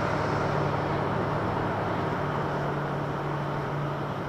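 DF200 diesel-electric freight locomotive's engine drone: a steady low hum over a broad rushing noise, slowly fading.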